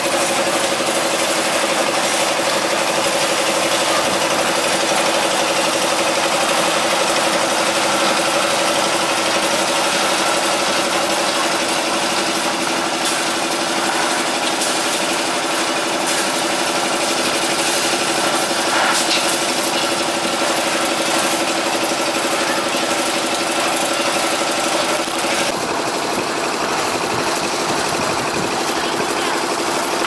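Concrete mixer's engine running steadily at a constant pitch, with a slight change in tone near the end.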